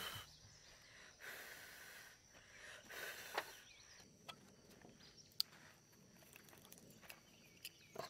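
Near silence: quiet outdoor background with a few faint clicks, the sharpest about five seconds in.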